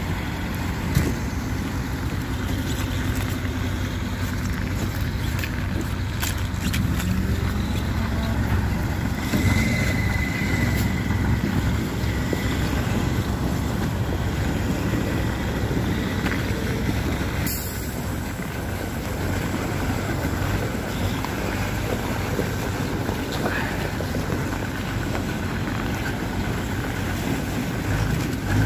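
Heavy truck's engine running steadily under load as the truck pushes through water and ice slush on a frozen river.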